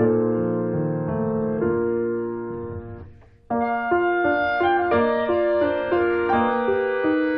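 Background piano music. Held chords fade away about halfway through, then a new phrase of single notes and chords begins.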